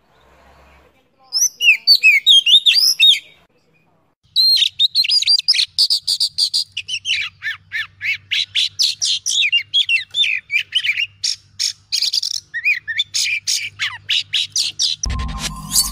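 Oriental magpie-robin singing: a short burst of fast, gliding whistles about a second in, then after a brief pause a long run of rapid, varied chirps and whistles. Electronic music comes in near the end.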